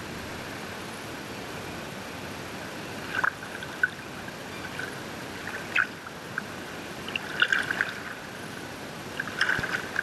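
Water splashing and dripping around a skin-on-frame kayak being paddled: short clusters of splashes and drips every second or two over a steady hiss of wind and water.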